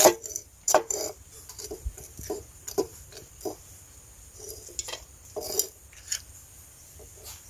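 Machete chopping the tail tips off apple snail shells on a wooden plank: a run of irregular sharp cracks and knocks, about one or two a second. Snail shells clink as they are handled and dropped into an aluminium pot.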